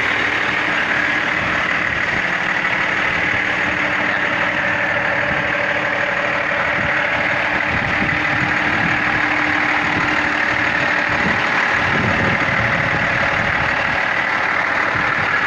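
International Paystar heavy truck's diesel engine idling steadily.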